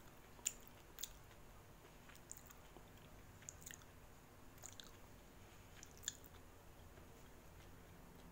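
Near silence: quiet room tone, with about half a dozen faint, sharp clicks scattered through the first six seconds.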